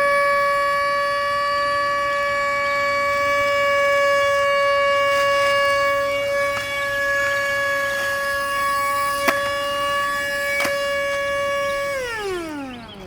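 Haimeec cordless stick vacuum's motor running with a steady high whine, two sharp clicks late on, then winding down in pitch as it switches off near the end. The motor is damaged from sucking up sand and is called "not happy".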